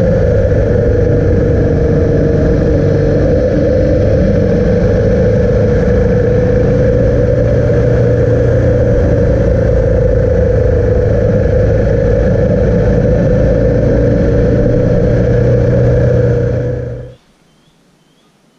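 Motorcycle engine running steadily at cruising speed with wind and road noise, holding an even pitch. It cuts off suddenly about a second before the end, leaving a quiet forest with a few faint bird chirps.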